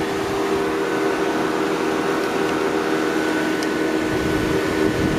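DC-converted swamp cooler with a 12-volt car radiator fan running steadily, blowing air out through its louvers: a constant rush of air over a steady hum.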